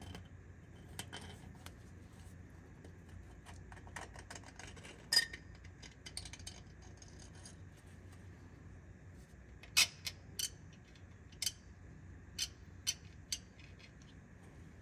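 A small metal pick scratching and clicking against the carbon-crusted top edge of a Detroit Diesel 6-71 cylinder bore, scraping out carbon. It makes faint scratching and scattered sharp ticks, the loudest about five seconds in and around ten seconds, with a few more near the end, over a steady low hum.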